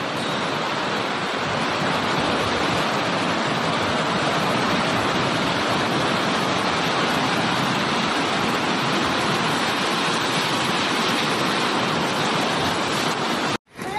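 Swollen, muddy floodwater rushing down a river channel in a rainstorm flash flood. A steady, even rush of water that cuts off abruptly near the end.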